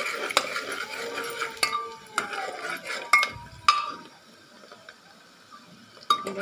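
A steel spoon stirring and scraping chopped onions frying in oil in an aluminium pot, with sharp metal-on-metal clinks over a steady sizzle. There is a quieter stretch in the middle, then a quick cluster of clinks near the end.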